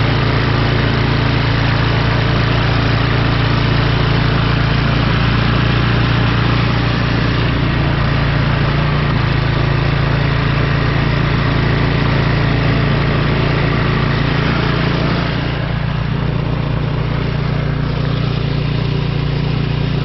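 Troy-Bilt snowblower's small petrol engine running steadily. About three-quarters of the way through it becomes a little quieter and duller.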